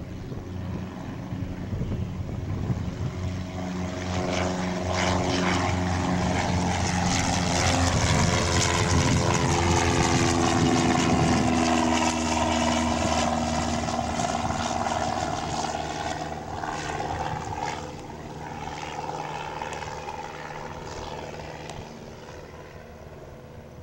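Cessna 172 Skyhawk's engine and propeller on its climb after takeoff, passing overhead. The sound grows louder, drops in pitch as the plane passes about halfway through, then fades as it climbs away.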